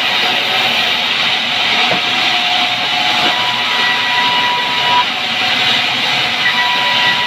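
Sawmill band saw running and cutting lengthwise through a pine board: a loud, steady rushing noise from the blade, with a faint high whine that comes and goes.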